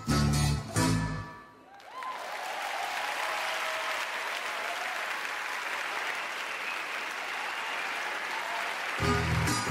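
Circus audience applauding for about seven seconds after the backing music stops, the applause starting just under two seconds in. Music with plucked strings plays at the very start and starts again near the end.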